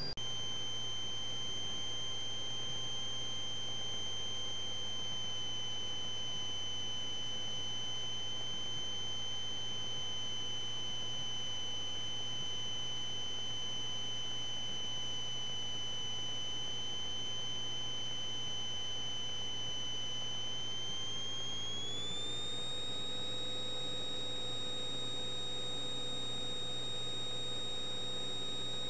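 Steady high-pitched electrical whine in the Cessna 172's cockpit audio feed, over a faint low drone. The whine glides up in pitch about 22 seconds in, then holds steady.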